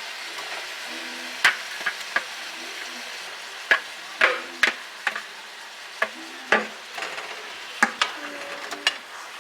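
Chicken breast frying in a pan with a steady sizzle, while a utensil stirs it and knocks and scrapes against the pan about a dozen times.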